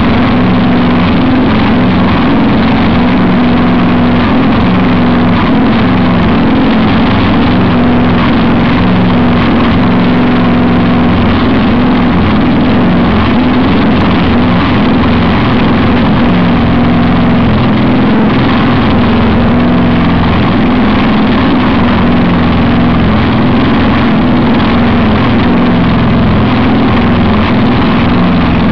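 Homemade longtail mud motor with a 13 hp Chinese air-cooled single-cylinder engine driving a semi-submerged surface-drive propeller, running loudly and steadily with its pitch wavering a little.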